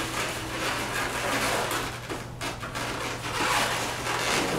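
Latex modelling balloons rubbing against each other and against hands as they are handled and joined, an uneven rustling over a steady low hum.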